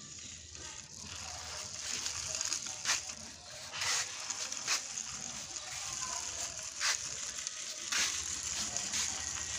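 Plastic wheels of a toy police car rolling and scraping over rough concrete as it is pushed by hand, a gritty hiss with a few sharp clicks along the way.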